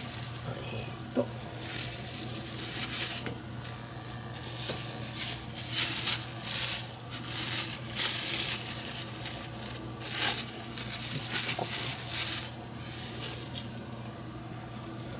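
Plastic cling film crinkling and rustling in irregular bursts as raw fish fillets are laid on it and shifted about on a cutting board, over a faint low steady hum.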